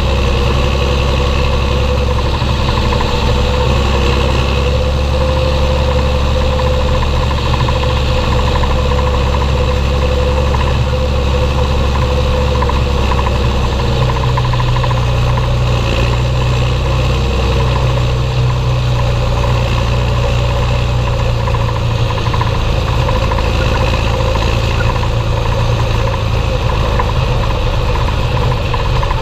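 Belarus 1221.3 tractor's six-cylinder diesel engine running steadily at an even speed, with a slight change in its low drone about two-thirds of the way through.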